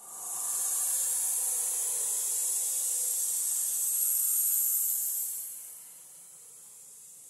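A long, breathy hiss used as a horror sound effect, swelling in at the start, holding for about five seconds, then fading away to a faint hiss.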